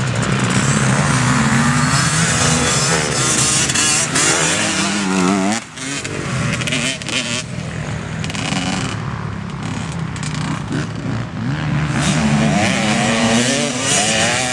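Motocross dirt bike engines revving up and falling back again and again as the bikes accelerate and shift around the sandy track. The engine sound briefly drops away about halfway through.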